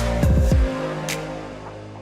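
Background electronic music with a beat: kick drums in the first half second, then the bass drops out and a single cymbal hit comes about a second in.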